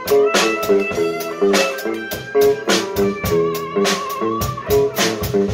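Live blues-rock jam: electric lead guitar playing over a steady drum-kit beat and a repeating low riff. About midway the guitar holds one note with vibrato for around a second.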